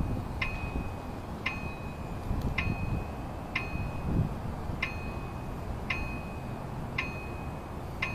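GNSS surveying equipment dinging about once a second, eight short electronic dings in a row. Each ding marks a reading logged during the directional-incline tilt calibration while the pole leans east.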